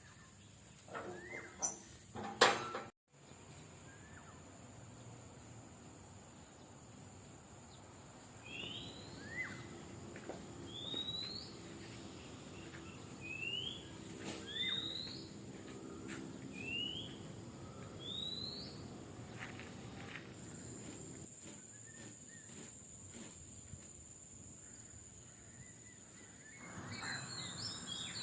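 A bird calling repeatedly with short rising chirps, about one every second or so, over a steady high-pitched insect drone, with busier chirping near the end. A couple of sharp knocks about two seconds in are the loudest sounds.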